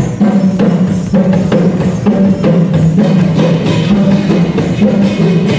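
Small rope-laced hand drum played by hand in a steady, even rhythm, its deep strokes alternating between two pitches.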